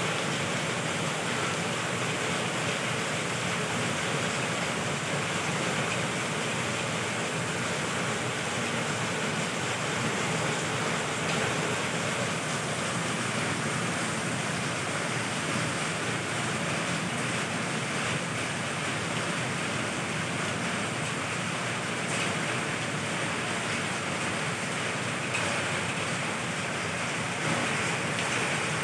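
Heavy rain falling steadily on trees, leaves and roofs: a dense, even hiss that holds without a break.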